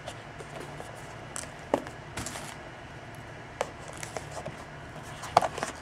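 A few faint, scattered clicks and light rustles from small objects being handled, over a low steady hum.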